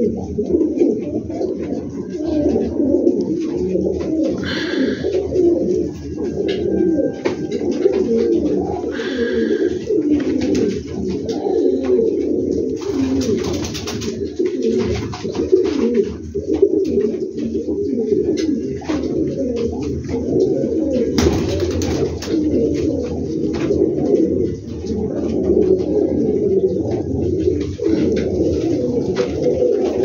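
Domestic pigeons cooing steadily, many calls overlapping into a continuous low burbling chorus. Two brief rustles break in, about 13 and 21 seconds in.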